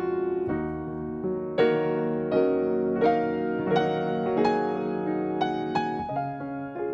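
Background piano music: a calm melody of single notes struck one after another over held chords.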